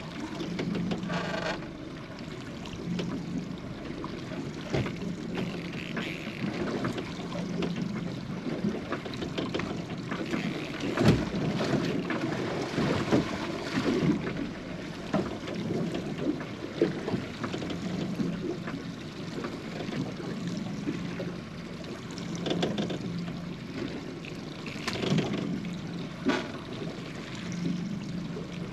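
Wind buffeting the microphone and water noise aboard a small boat at sea, with a low hum that comes and goes every few seconds and scattered clicks and knocks.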